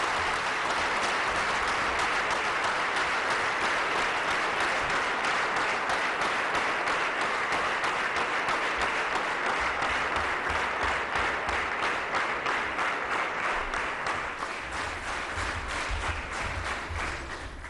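A large seated audience applauding steadily, a dense patter of many hands clapping.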